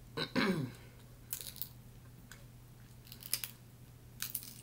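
Shell of a cooked shrimp being peeled by hand: short bursts of crackling and tearing, about four clusters roughly a second apart, over a steady low hum. A brief falling vocal hum comes just at the start.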